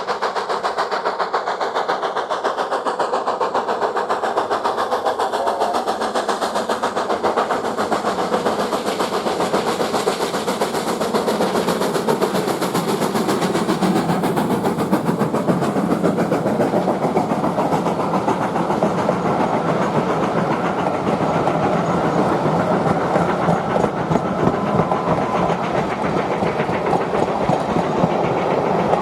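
BR Standard 4MT 4-6-0 steam locomotive working a train, its exhaust and the clatter of wheels over the rails running continuously, growing a little louder about halfway.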